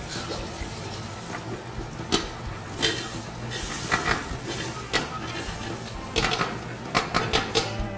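Browned quail pieces and their juices poured from a bowl into a stainless stockpot of onions: liquid pouring, then the pieces sliding and dropping in with a run of wet plops and knocks against the pot, several coming close together near the end.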